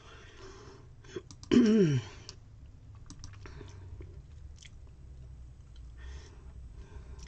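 Faint small clicks and soft rustling from a pen being handled over a planner, with one short, falling hum from a person's voice about a second and a half in.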